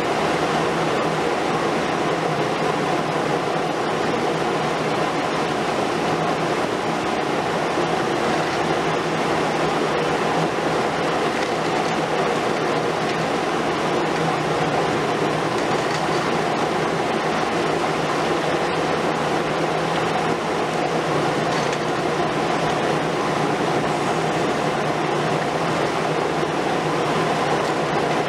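Diesel engine and hydraulics of a Liebherr R 950 Demolition long-front excavator running steadily as it works high on a building, a continuous drone with a steady hum in it.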